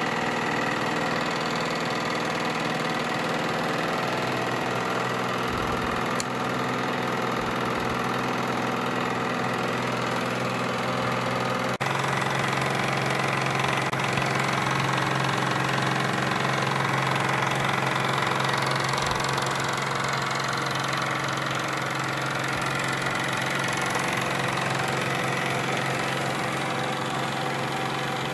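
Steady mechanical hum of a small machine at a constant pitch, its tone shifting slightly at a cut about twelve seconds in.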